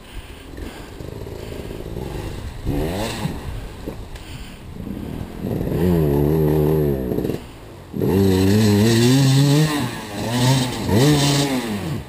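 Dirt bike engine revving in repeated throttle bursts, pitch rising and falling, as it is ridden up out of a rocky creek crossing. It dips briefly just before two-thirds of the way through, then runs louder with longer revs.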